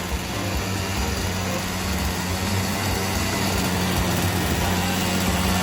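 Poulan Wild Thing 2375 chainsaw's small two-stroke engine running steadily at idle, now that it has been brought back to life with new fuel lines and a primer bulb.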